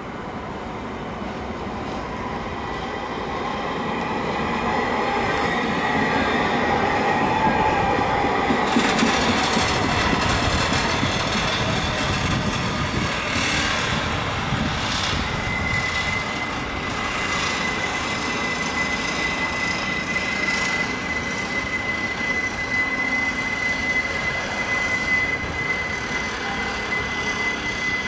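CAF Urbos 100 tram running along the rails, its noise building as it approaches, with a run of clicks from the wheels on the track. From about halfway through there is a steady high-pitched wheel squeal.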